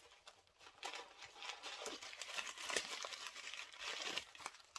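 Crumpled white paper stuffing crinkling and rustling in a run of uneven handfuls as it is pulled out of a leather handbag.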